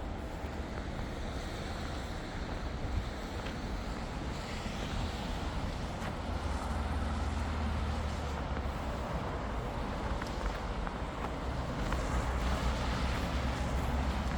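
Steady street traffic noise, with wind rumbling on the microphone and a low rumble that grows stronger from about six seconds in.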